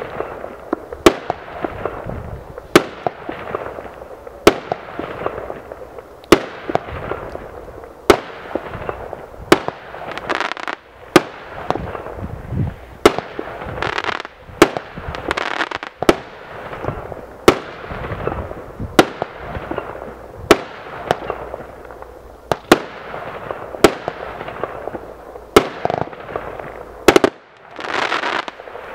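A 49-shot fireworks cake (Magnolia 49) firing shot after shot, one sharp bang about every one to two seconds, each trailed by a fading crackle of glittering stars.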